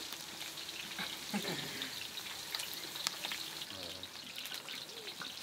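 Food frying in hot oil: a steady sizzling hiss with scattered small crackles.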